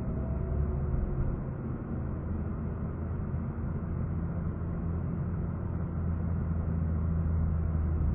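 Renault Mégane RS265's 2.0-litre turbocharged four-cylinder engine running steadily at low revs as the car rolls slowly at pit-lane speed, heard from inside the cabin as a steady low hum.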